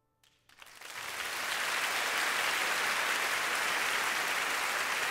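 The last faint held notes of the song die away, and within the first second a concert audience's applause swells up and holds steady.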